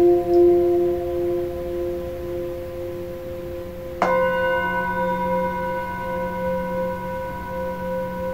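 Himalayan singing bowls tuned to F: a large floor bowl rings on with a pulsing hum and slowly fades, then about four seconds in a handheld bowl is struck once with a felt-padded mallet and rings on with steady, wavering tones.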